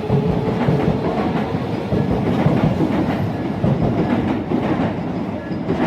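Tobu line electric train passing over a level crossing, with steady rolling noise and wheels clicking over rail joints.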